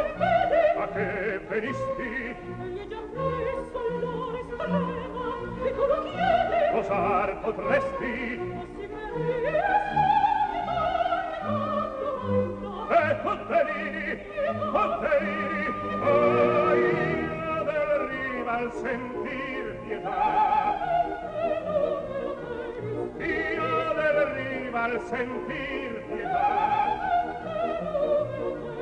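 Opera music: a singer's voice holding long, wavering notes over an accompaniment.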